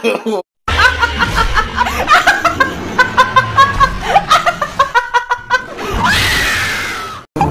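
A person laughing in rapid, repeated bursts, then a long scream about six seconds in that falls in pitch, fades and cuts off abruptly.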